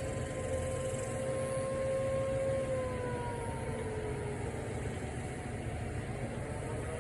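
Outdoor warning siren sounding for a scheduled test: a steady tone that starts winding down in pitch about two and a half seconds in, with another siren tone rising again near the end. A steady low rumble of background noise runs underneath.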